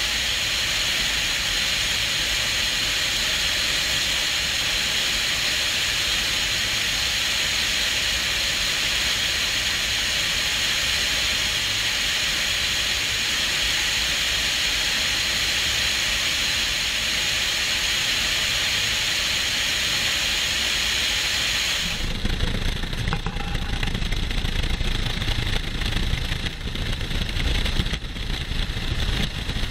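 Military helicopter in low flight, heard from on board: a steady rushing hiss of airflow and turbine. About three-quarters of the way through it changes abruptly to a lower, uneven, buffeting rumble of wind and rotor noise at an open cabin door.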